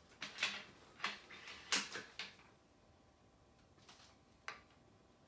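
Faint handling noises: a handful of light clicks and knocks, most in the first two seconds, then one more near the end.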